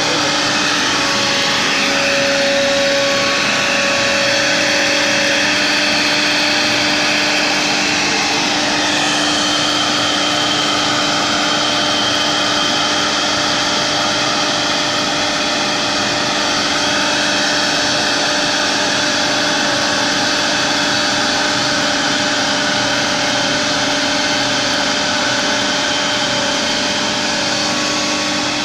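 CNC router spindle running with the bit carving a relief pattern into a wooden board, a steady high whine and cutting noise, with the dust-collector blower drawing chips through the spindle's extraction hose. The tone of the cutting shifts a few times as the bit moves through the pattern.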